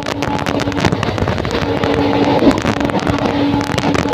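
WDG4 diesel-electric locomotive, with its EMD two-stroke engine, running through a station at high speed: a steady drone of several held tones over a dense, rapid clatter.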